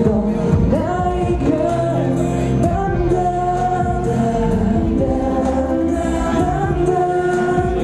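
A man singing a slow pop song live into a handheld microphone over instrumental accompaniment, with long held notes in the melody.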